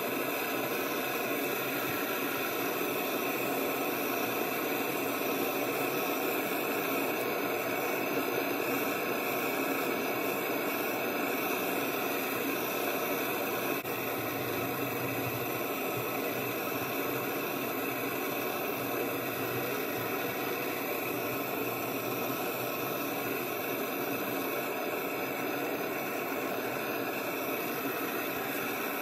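Steady whirring hiss with a faint hum, like a small fan running, unchanging throughout.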